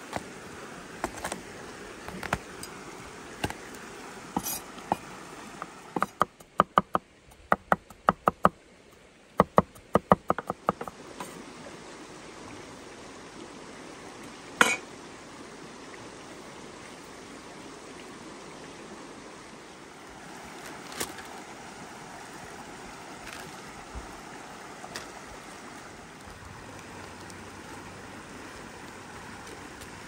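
Chef's knife cutting garlic cloves on a wooden cutting board: a few single cuts early, then a fast run of chopping strokes from about six to eleven seconds in, and one louder knock on the board near the middle. A stream rushes steadily behind.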